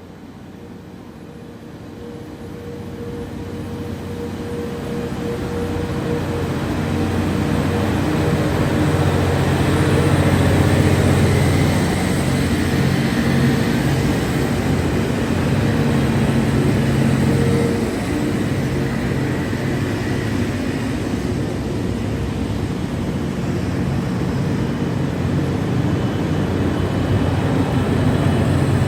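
A diesel train approaching on the line, its engine hum and wheel and rail noise growing louder over about the first ten seconds, then staying loud and steady.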